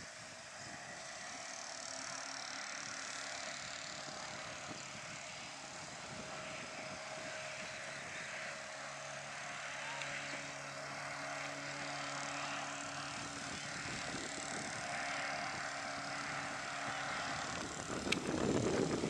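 Outboard motor of a small motorboat running at speed, a steady drone that slowly grows louder as the boat comes closer, with a louder rush near the end.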